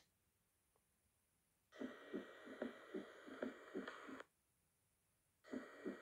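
Auscultation recording of a third heart sound (S3) gallop: a quick, even run of soft low heart thuds over a faint hiss. It starts nearly two seconds in, breaks off for about a second, then starts again near the end.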